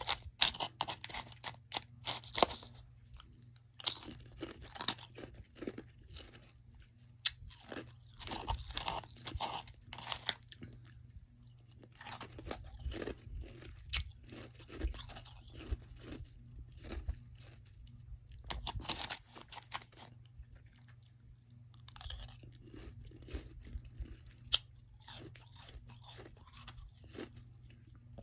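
Close-up chewing of soft freezer frost: crisp crunching in bursts of several seconds, with short pauses between mouthfuls.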